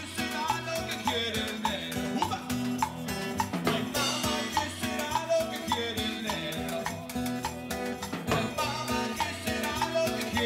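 Live Latin acoustic band music: strummed acoustic guitar and bowed electric viola over hand percussion keeping a steady beat of about two hits a second.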